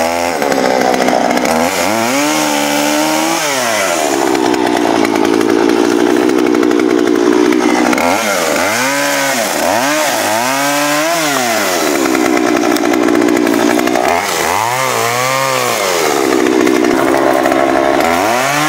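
Poulan Pro 46cc two-stroke chainsaw with a 20-inch bar cutting through a fallen tree trunk. Its engine pitch climbs and drops several times between cuts, holding a steady high pitch while the chain is in the wood.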